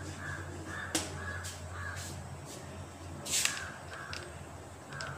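Crows cawing in a quick repeated series. A sharp knock of chalk on the blackboard comes about a second in, and a louder, brief chalk scrape a little past three seconds.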